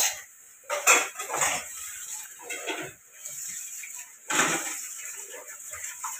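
Metal spoon and stainless steel kitchenware clattering: several separate clinks and scrapes, the loudest about a second in and again past the four-second mark.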